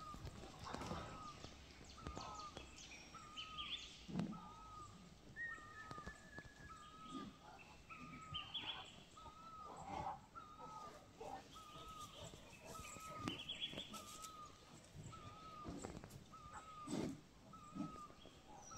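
A bird calling one short rising-and-falling note over and over at a steady pace, with other birds chirping now and then. A few soft thumps and rustles come about 4, 10 and 17 seconds in.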